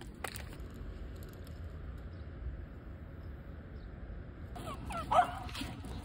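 Small dog whining and yipping in short, high, pitch-bending cries that start about two-thirds of the way in, over a low steady outdoor rumble.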